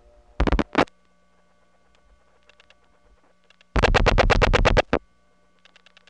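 Rotary dial pulses on a telephone line through a step-by-step exchange: a short train of sharp clicks about half a second in, then a longer train of about ten clicks at roughly ten a second near the four-second mark, with fainter switch clicks between them. A steady hum and a faint steady tone sit on the line throughout.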